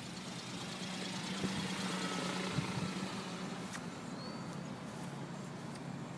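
RC autogyro's engine and propeller running steadily as it flies overhead, a constant hum that grows a little louder about a second in and eases off after about three seconds.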